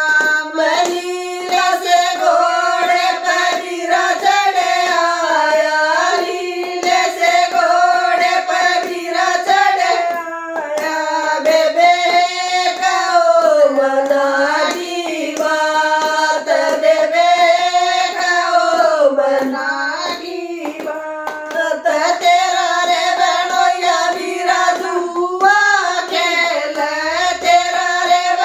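Three women singing a Haryanvi folk song (jakdi) together without instruments, clapping their hands along to it.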